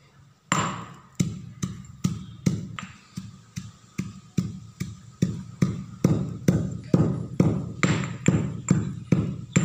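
Stone pestle pounding in a stone mortar: a steady run of heavy thuds, about two and a half strikes a second, starting about half a second in.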